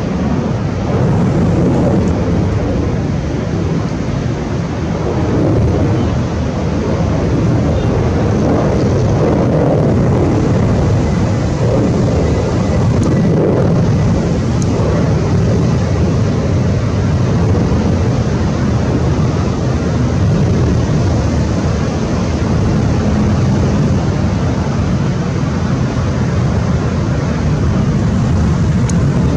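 Jet engines of a distant twin-engine Delta airliner climbing out after takeoff: a steady, low rumble.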